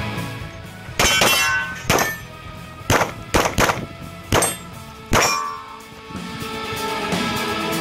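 About eight pistol shots in quick, uneven groups, with a ringing metallic clang of steel targets after the hits. Music fades in near the end.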